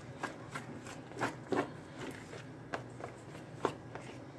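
A hand mixing thick, wet chicken batter in a plastic container: short, irregular squishing clicks as the fingers work through it.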